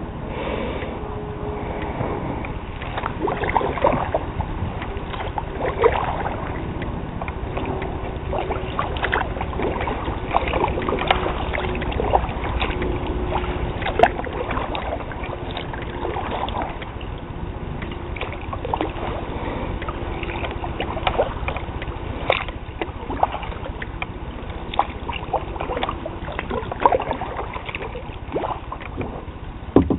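A kayak being paddled: paddle strokes in the water with many irregular knocks and clicks, a few of them sharp, over a low steady rumble.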